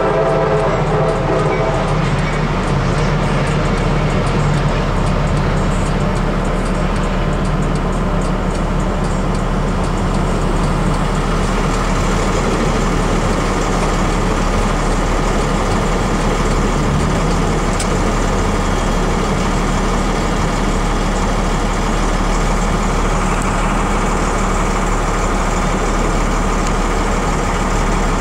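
A freight train's horn stops about two seconds in, then the train's cars rush steadily past the crossing at speed.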